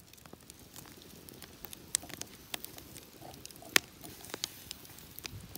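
Wood campfire crackling: irregular sharp pops and snaps over a low hiss, with one louder pop about two thirds of the way in.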